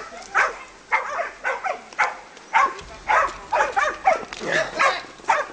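Hunting dogs barking and yelping in quick succession, about three calls a second, as they attack a wild boar.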